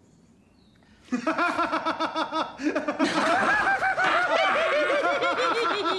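A man laughing heartily in quick, repeated 'ha' sounds, breaking out about a second in after a hush.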